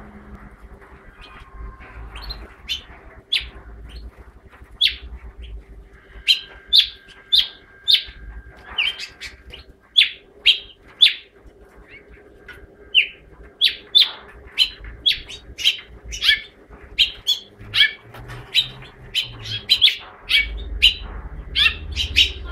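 Caged house finch (the bird kept in Turkey as the 'Mexican çütre') singing: a long string of short, bright chirping notes that comes faster and denser after the first few seconds. A faint steady hum runs underneath.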